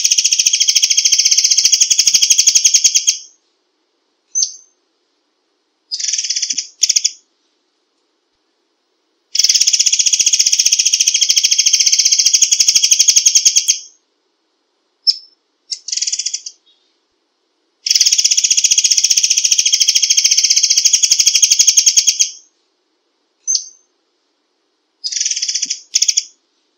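Murai air songbird singing its rapid-fire 'tembakan' song: three long, dense trills of quick repeated notes, each about four and a half seconds, with short bursts of notes in the gaps between them.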